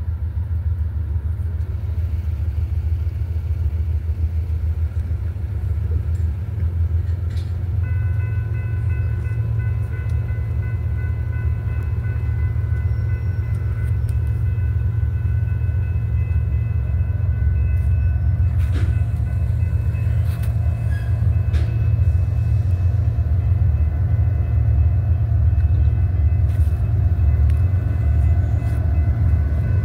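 Low rumble of an approaching train, growing louder toward the end, with a faint steady high whine joining about eight seconds in.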